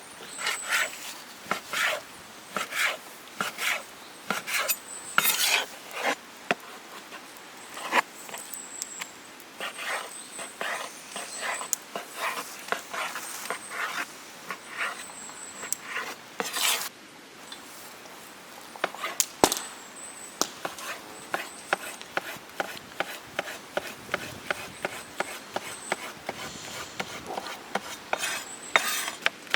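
Repeated chopping strikes on wood, irregular at about one or two a second and coming faster near the end.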